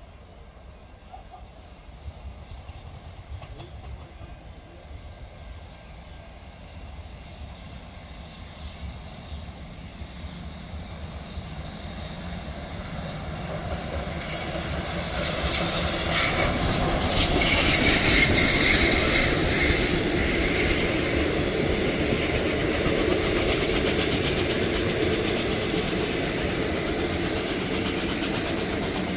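Victorian Railways R class 4-6-4 steam locomotive R761 and its train approaching and passing, growing steadily louder to a peak about eighteen seconds in, then the carriages rolling by with a clickety-clack of wheels. Wind buffets the microphone throughout.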